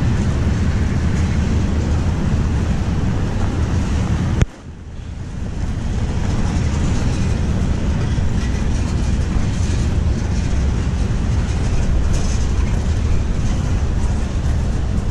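Wind buffeting the microphone as a steady low rumble. About four and a half seconds in there is a sharp click, then the level drops out suddenly and recovers over a second or so.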